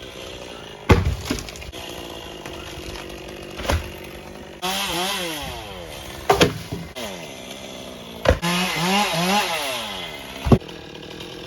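Chainsaw cutting maple wood, its engine pitch repeatedly dipping under load and climbing again in two spells. Several sharp knocks sound between the cuts, the loudest about a second in and near the end.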